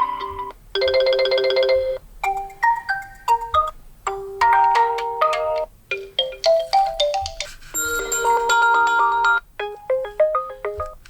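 Realme 9i smartphone alarm tones previewed one after another through the phone's speaker. About six short electronic melodies of quick, bright notes, each cut off after a second or two before the next begins.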